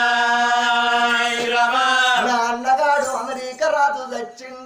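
A man singing in Telangana Oggu Katha folk-ballad style. He holds one long note for about two seconds, then sings a few shorter phrases that die down near the end.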